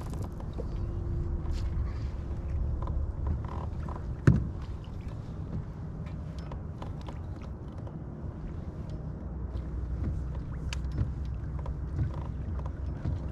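Steady low rumble of wind on the microphone with water against a kayak hull, with scattered faint clicks. A single sharp knock about four seconds in is the loudest sound.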